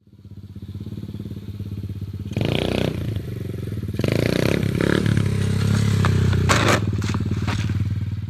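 Pit bike engine running and revving up in steps, with a few sharp clattering knocks near the end. The sound cuts off suddenly.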